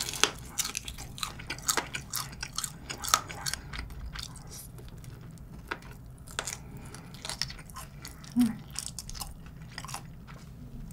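Close-miked biting and chewing of a crispy, spicy fried chicken wing: a run of sharp crunches and crackles from the fried coating, with wet chewing between them as the meat is eaten off the bone.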